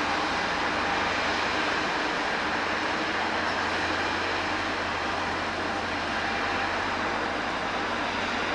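A River-class offshore patrol vessel passing close by under power: the steady low hum of its diesel machinery over the even rush of water from its bow wave and wake along the hull.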